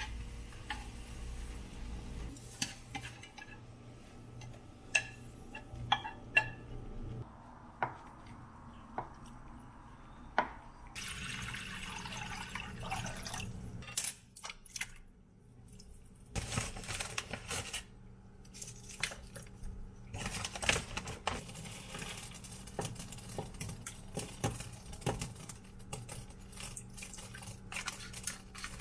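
Cooking in pots and pans: chopsticks click and tap sharply against a frying pan as vegetables are stirred, then liquid pours and splashes in a saucepan, with more clinks of utensils on the pot.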